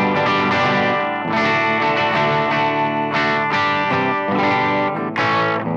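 Les Paul electric guitar played through a Simplifier MK2 amp-simulator pedal: a run of strummed chords and ringing notes, each left to sustain. The tone is set clean on the preamp with the power-amp stage pushed hard, giving only light grit.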